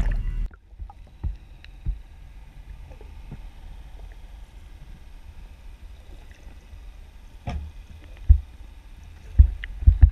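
Low knocks and thumps on a small fishing boat, over a quiet steady background of water and wind. A loud steady low sound cuts off suddenly about half a second in, and the knocks come in a cluster near the end.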